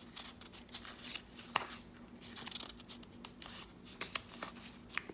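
Paper and card being handled: scattered light rustles and small sharp ticks as paper-craft pieces are picked up and turned over, over a faint steady hum.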